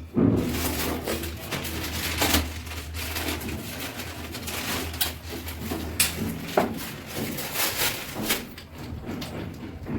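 Handling and knocking noises of commode-fitting work, with several sharp knocks over a low steady hum that stops about seven seconds in.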